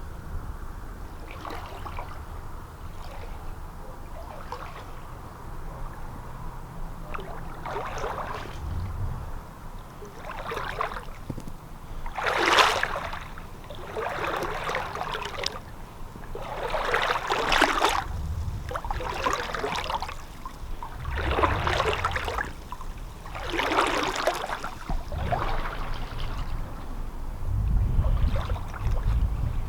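Slow, spaced footsteps of a person walking on foot, a short rustling burst every second or two, over a low rumble of wind on the microphone.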